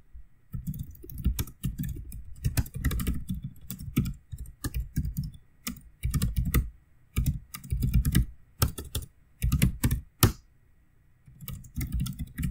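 Typing on a computer keyboard: bursts of rapid keystrokes with short pauses between them, as terminal commands are typed and entered.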